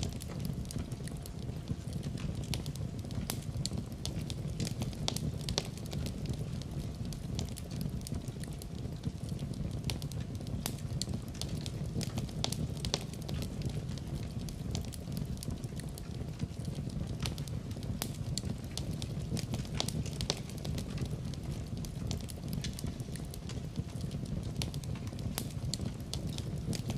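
Wood fire burning in a fireplace: a steady low rumble with frequent irregular crackles and pops.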